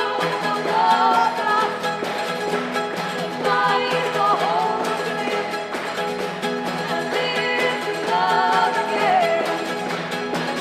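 Live band music with a singing voice in three sung phrases over sustained instrumental accompaniment.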